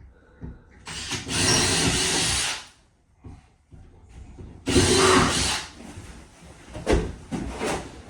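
Power drill running in two bursts, the first about a second and a half long and the second under a second, followed by two sharp knocks near the end.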